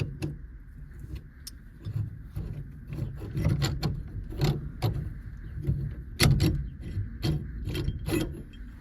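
Irregular metal clicks and clinks of steering-column parts being handled: the lock plate compressor tool being unscrewed and worked off the steering shaft, with the sharpest knocks about six seconds in.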